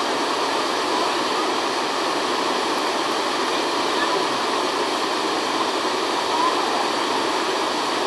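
Waterfall cascading over rock ledges into a river pool: a steady rushing of water.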